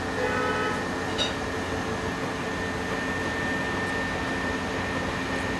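Steady machine hum with a constant whine, the running noise of commercial kitchen appliances, with a brief click about a second in.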